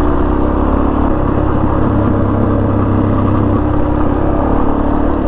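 Suzuki DR-Z400S single-cylinder four-stroke engine running steadily under the rider while riding a dirt road, with road and wind noise.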